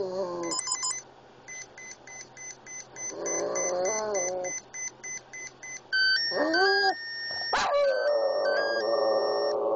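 Boston Terrier howling along with a repeating electronic beeping tune. Wavering howls come about three seconds in and again about six seconds in, and a long held howl starts about eight seconds in, just after a sharp click.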